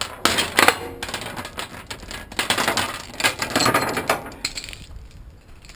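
Steel tie-down chains and chain binders clanking and rattling as they are gathered and dropped onto a steel trailer deck, in several bursts that die away near the end.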